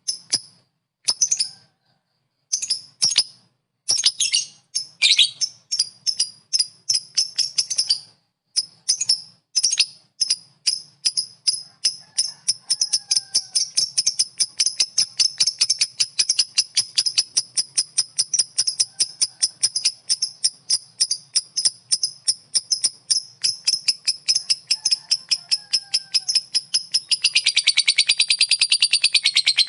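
Lovebird ngekek: a long chattering trill of sharp, high chirps. It begins as scattered notes, speeds up into a fast, even run of several chirps a second, and turns denser and buzzier near the end.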